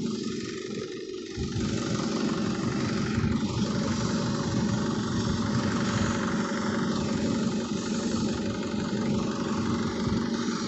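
Isuzu D-Max diesel engine idling steadily in sub-zero cold. Its fuel filter, clogged by frozen diesel, is being warmed with steam from a pressure cooker.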